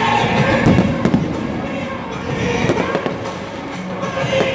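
Fireworks going off in a rapid series of bangs and crackles, loudest about a second in, over music playing in the background.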